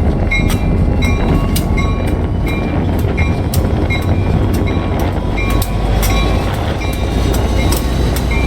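Train passing close by: a steady low rumble of the rolling cars, with the wheels clicking over the rail joints about twice a second.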